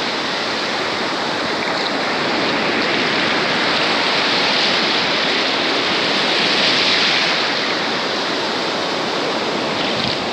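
Sea surf breaking and washing up the beach: a steady rush of water that swells a little midway.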